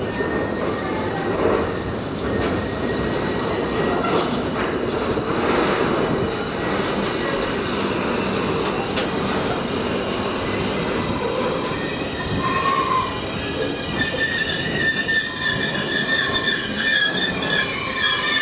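Freight train's container and tank-container flat wagons rolling steadily past, wheels rumbling and clattering on the rails. A thin high wheel squeal runs under it, growing strong in the last few seconds.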